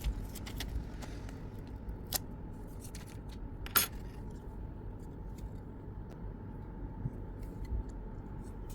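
Light clicks and taps of small parts and tools being handled during a phone screen repair, with two sharper clicks about two and four seconds in, over a low steady background hum.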